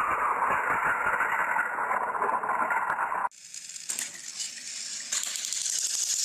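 Battery-powered Plarail toy trains running on plastic track: a steady whirring gear buzz with rattling wheels. A little over three seconds in, the sound switches abruptly to a hissier, higher-pitched rattle with scattered clicks.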